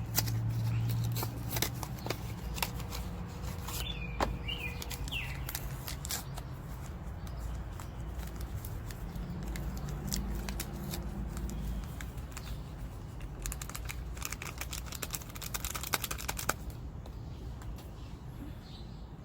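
A jello packet being handled and torn open, with crinkling and tearing of the packet and scattered small clicks, and a dense stretch of rustling about three-quarters of the way through.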